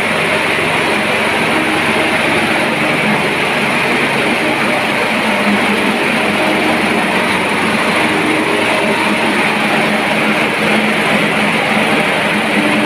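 Portable smoke-ejector blower running steadily, a loud even rush of air with a low hum underneath, ventilating smoke out of a burned room through a flexible duct.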